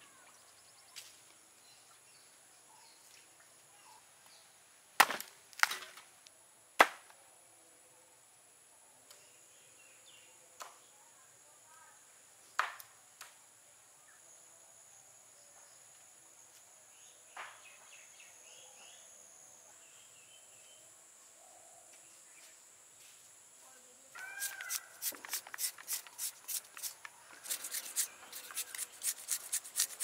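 A few sharp knocks about five to seven seconds in over a steady high-pitched whine. Near the end comes a fast run of scraping strokes, about four a second, from a hand grater shredding raw papaya for pickle.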